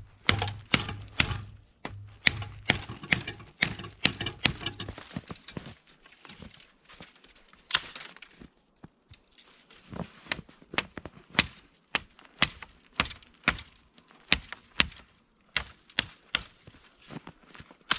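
Small deciduous branches being broken up and chopped for kindling: a run of sharp, irregular wooden cracks and knocks, close together at first and then more spaced out.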